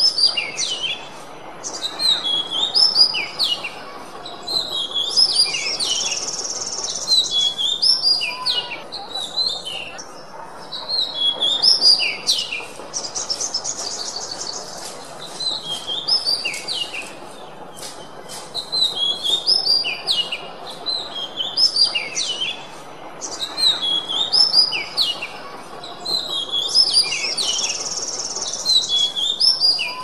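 Oriental magpie-robin (kacer) singing a continuous run of varied, clear whistled phrases. A buzzy rattling trill breaks in several times.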